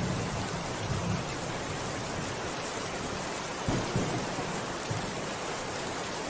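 Steady rain falling, with low rumbles of thunder near the start and again about four seconds in.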